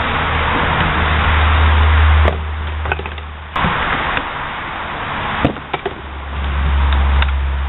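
Plywood practice swords knocking against handmade round shields during sparring: about five short, sharp knocks at uneven intervals. A steady rushing noise with a low hum lies under them and drops away for a few seconds in the middle.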